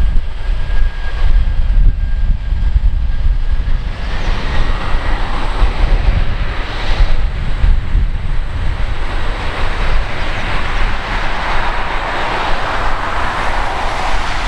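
Boeing 747-400 jet engines roaring on the runway during its landing roll. The rushing roar grows louder from about four seconds in and is loudest near the end, over a constant deep rumble.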